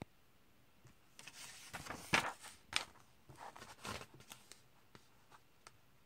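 Comic book pages being handled and turned: a few seconds of paper rustling with sharp clicks and taps, and a few faint ticks before and after.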